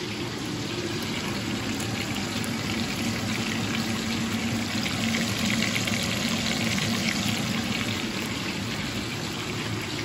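Chicken pieces sizzling and bubbling in a steel pot on the hob, a steady crackling hiss that swells a little toward the middle, over a faint steady low hum.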